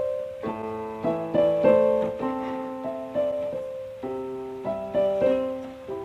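Background piano music: a slow melody of struck notes over chords.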